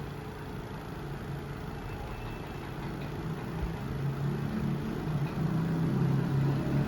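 A person's voice droning low and steadily into a pipe, growing louder, the sound meant to make particles on the far end move.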